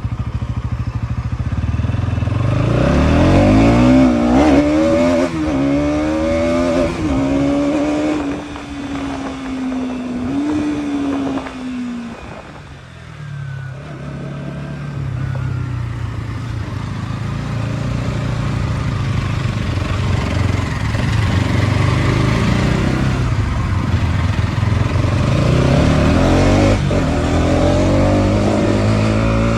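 Bajaj Pulsar NS200's single-cylinder engine on the move: it pulls away and climbs through the gears, its pitch rising in steps, then drops back to a low steady drone about twelve seconds in and picks up again near the end.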